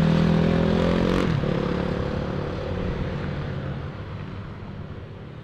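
Dirt bike engine running close by with a steady note, its pitch dropping away about a second in. Then traffic and wind noise that fades out gradually.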